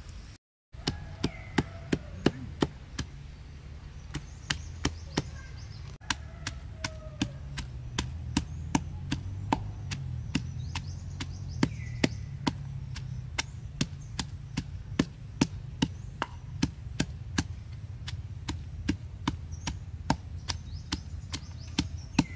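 Wooden pestle pounding fresh chili, garlic, galangal and lemongrass in a clay mortar: steady, evenly spaced strikes, about two to three a second.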